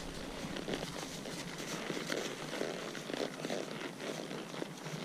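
Horses walking on a gravel road: a steady run of irregular hoof steps crunching on gravel.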